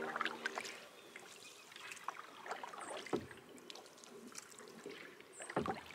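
Faint water dripping and lapping at the side of a canoe, with scattered small knocks and a louder knock near the end.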